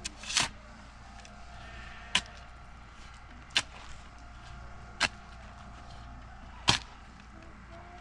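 Five sharp blows of a hand tool striking, evenly spaced about a second and a half apart.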